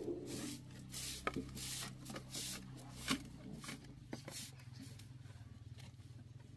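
Short bundled hand broom sweeping bare dirt in quick swishing strokes, brisk at first, then slower and fainter toward the end, with a couple of sharp clicks along the way. A steady low hum runs underneath.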